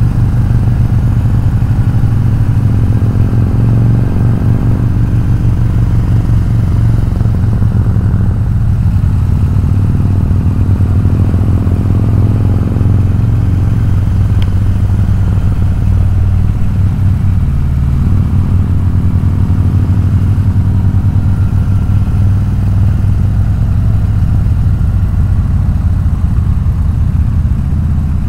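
Harley-Davidson V-twin motorcycle engine running steadily at cruising speed, heard from the rider's seat while riding.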